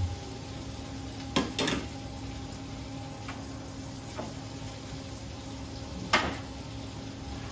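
Metal utensils knocking against pans on a gas range: two knocks about a second and a half in, a couple of faint ticks, and a sharper clank about six seconds in. A steady kitchen hum runs underneath.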